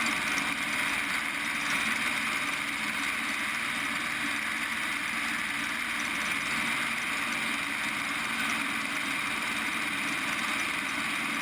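Preceptor Ultra Pup ultralight in level cruise flight: its engine and propeller give a steady drone, mixed with the rush of passing air on the wing-mounted microphone.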